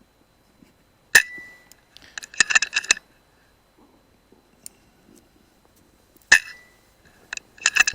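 Two shots from a .177 air rifle, about five seconds apart, each a sharp crack with a short metallic ring, and each followed about a second later by a quick run of metallic clinks.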